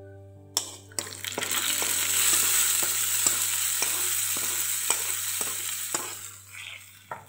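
Hot oil tempering of green chilli, curry leaves and ginger sizzling as it is poured from a pan into curd. A steel spoon scrapes and taps the pan about twice a second, and the sizzle dies away near the end.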